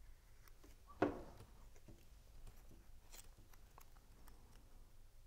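Faint handling of small cardstock pieces being glued together by hand, with one short tap about a second in.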